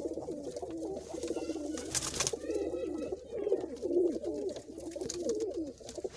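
Several domestic pigeons cooing at once, a continuous overlapping warble. There is a brief rustle about two seconds in.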